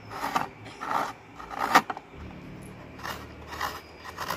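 Fresh coconut flesh being scraped out of its half shell with a small hand-held metal scraper: a run of short, rasping scraping strokes, roughly one or two a second, with one sharper stroke near the middle.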